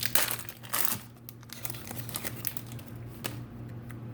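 Trading-card pack wrapper being torn open and crinkled, loud for about the first second, then softer rustling and a few light ticks as the cards are handled.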